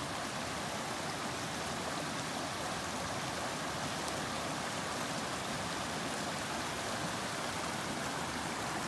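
Small shallow stream running over stones across a path: a steady, even rush of water.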